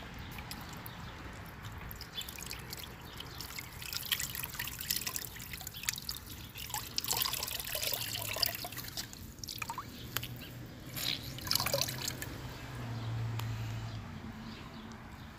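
Wet dripping and trickling with scattered crackles, busiest through the middle.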